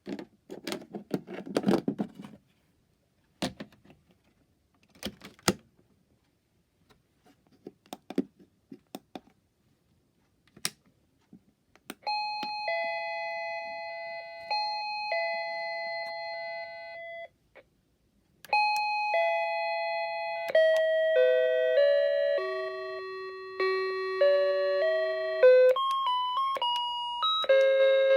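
Scattered clicks and rattles, then a wireless plug-in doorbell chime sounds electronic ding-dong tones, pausing between rings, and later plays a tune of changing notes.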